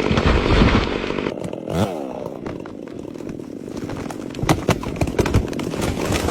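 Chainsaw engine dropping from a rev toward idle, with a short blip of throttle about two seconds in. A series of sharp knocks comes in the second half.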